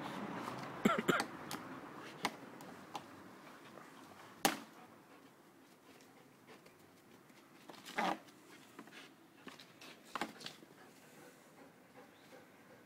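A Belgian Malinois dropping from a hanging rope and moving about on concrete: a few short scuffs and knocks several seconds apart, the sharpest about four and a half seconds in and near eight seconds.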